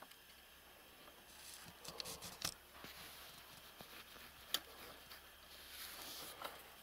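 Faint rustling and a few sharp clicks and knocks as a wooden garden gate in a wire-mesh fence is handled and shut.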